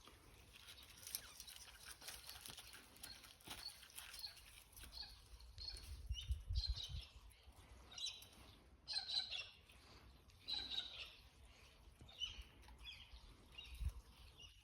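Birds chirping in short, repeated high calls, busiest through the middle, with wind rumbling on the microphone in gusts about six seconds in and again near the end.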